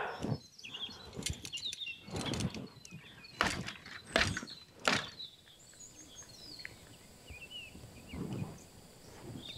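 Small birds chirping faintly in woodland, with a few short rustling swishes in the first half, such as movement through undergrowth.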